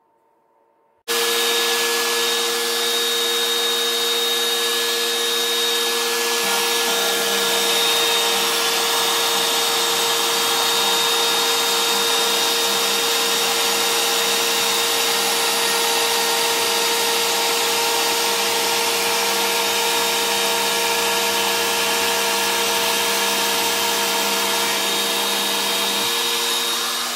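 Router spindle of an Oliver 1013 CNC machine running at full speed while its bit mills a 3 mm deep slot in PVC lumber. It is a steady whine over cutting hiss that starts abruptly about a second in, with a slight shift in its lower tones about six seconds in and again near the end.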